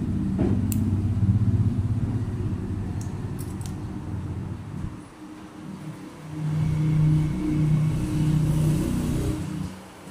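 Low hum of a motor vehicle engine running, its pitch and level shifting, dipping twice and picking up again. A few faint clicks sound in the first half.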